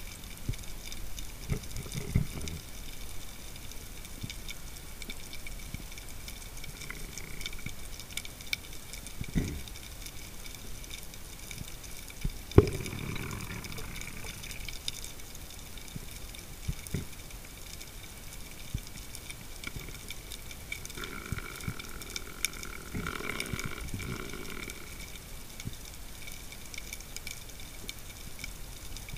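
Underwater sound through a camera housing: a steady faint hiss with scattered small clicks, a single sharp knock about twelve seconds in, and a brief humming sound with a low rumble a few seconds before the end.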